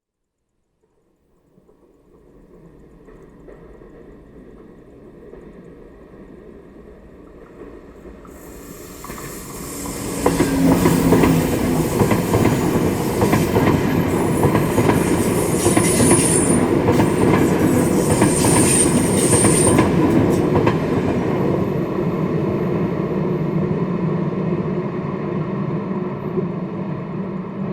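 A train approaching and passing close by: a low rumble builds from about two seconds in, turns loud about ten seconds in with rapid wheel clatter over the rail joints, and two brief high wheel squeals ring out in the middle of the pass. The sound begins to fade near the end.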